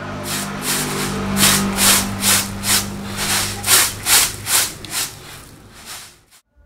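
Rice grains swishing in a woven bamboo winnowing tray as it is tossed, a rhythmic rustle about two to three times a second, over a steady low hum. It fades out near the end.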